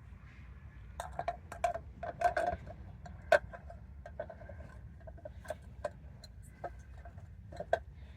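Wheel center cap clicking and tapping against the wheel rim as it is lined up and pressed into place by hand: a run of irregular sharp clicks, the loudest about three seconds in.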